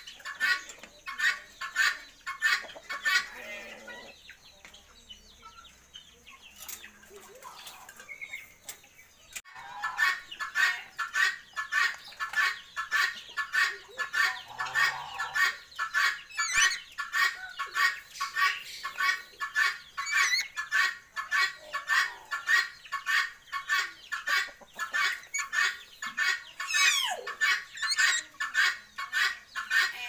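A bird clucking in a fast, even rhythm of about two or three calls a second. The calls stop for about five seconds from around four seconds in, then resume, with a few squeaky whistled notes among them.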